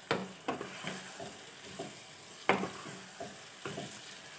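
Wooden spatula stirring chicken and freshly added tomato-onion paste in a nonstick kadai, scraping and knocking against the pan in irregular strokes. The loudest knocks come at the start and about two and a half seconds in, over a faint sizzle.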